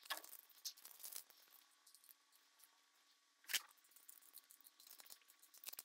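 Near silence with a few faint handling ticks and one short click about three and a half seconds in, as a small spanner is worked on the float-chamber lid of an SU HD8 carburettor.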